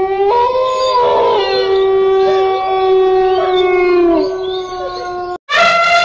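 A long, steady canine howl, with a second, higher voice joining early on, that breaks off about five seconds in. Just after, an elephant starts a long trumpet call.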